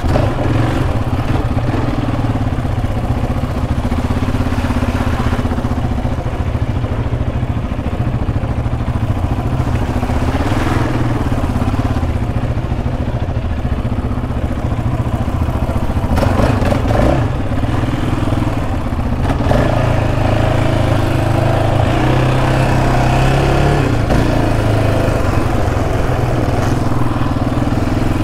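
Single-cylinder engine of a Yamaha Raptor 700R sport quad fitted with an aftermarket Monster exhaust, running under way on a dirt trail. The pitch rises and falls several times as the throttle is opened and closed.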